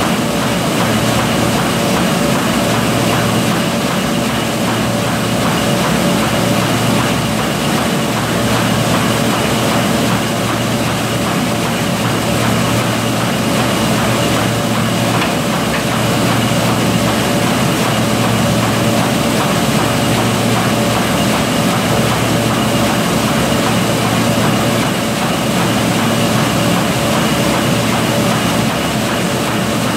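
Envelope-making machine producing pocket-type window envelopes, running continuously: a loud, steady mechanical drone with a constant hum and no break.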